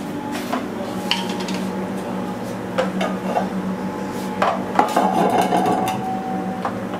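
Wooden spoon stirring stiff maize-meal porridge (kawunga) in an aluminium pot, with irregular scrapes and knocks of the spoon against the pot, busiest in the second half. A steady low hum runs underneath.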